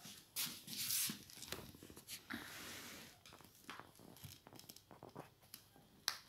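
Irregular scratching and scraping from a kitten playing with a plastic ball on a wooden floor: claws and paws on the ball and floorboards, with one sharp tap near the end.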